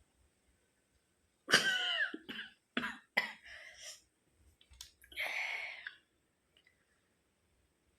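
A woman coughing and clearing her throat as she tries to make herself sneeze. A loud voiced cough comes about a second and a half in, then a few shorter coughs, and about five seconds in a longer breathy puff. No full sneeze comes.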